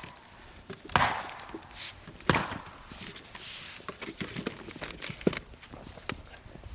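Firewood being struck: two sharp wooden knocks about a second and a half apart, followed by lighter clicks and knocks of wood being handled.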